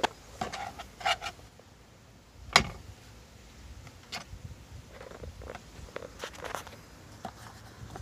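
Honda Odyssey's plastic steering column cover being worked loose and taken off: scattered plastic clicks and rubbing, with one loud knock about two and a half seconds in.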